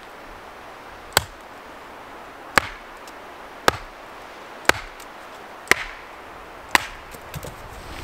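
Small axe chopping wood on a chopping block: six sharp, evenly paced strikes about a second apart as a short log is split.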